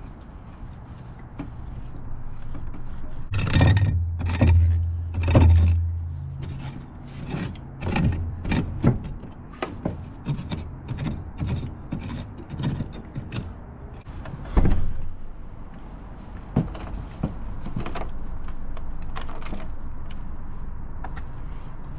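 Compost being rubbed and scraped across a wire-mesh sifting screen of galvanized hardware cloth in a wooden frame, by gloved hands and a garden hoe. It comes as a run of irregular scrapes and rattles, with a sharp knock about fifteen seconds in.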